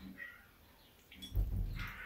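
Sleeping, dreaming cat making small sounds: a faint short squeak just after the start, then a louder low rustling thump over the last half second.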